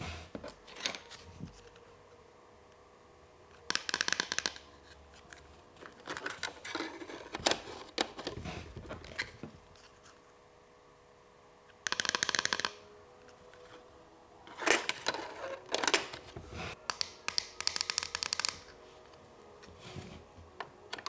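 Yellow plastic toy ATM being handled and operated. Scattered clicks, with three short bursts of rapid clicking or rattling, about 4 s, 12 s and 17 s in.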